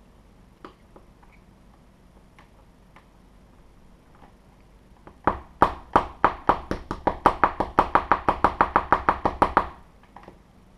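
A run of rapid, sharp tapping knocks, about seven a second for roughly four seconds, starting a little past halfway, as a stubborn nut is tapped into a tight slot. Before it, faint small clicks of parts being handled.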